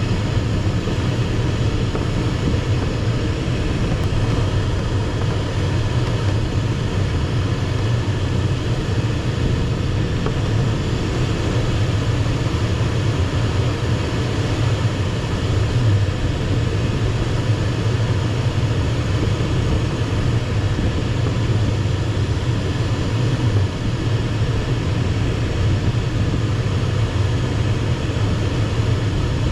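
Steady rush of airflow in the cockpit of an ASW 15 sailplane in gliding flight, a low, even noise with no engine.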